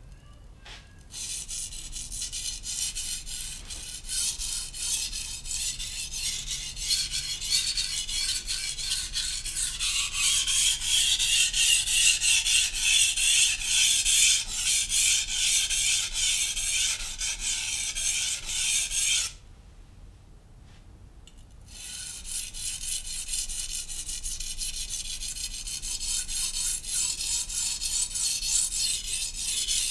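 Steel knife blade being stroked back and forth on a Naniwa Professional 600 grit whetstone, a steady gritty rasping of repeated strokes. The strokes begin about a second in, stop for a couple of seconds about two-thirds of the way through, then resume.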